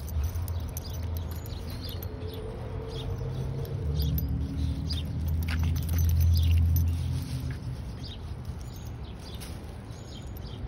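Small dog's feet and claws pattering on a concrete sidewalk in faint, scattered ticks, under a low rumble that swells from about four seconds in and fades near seven seconds.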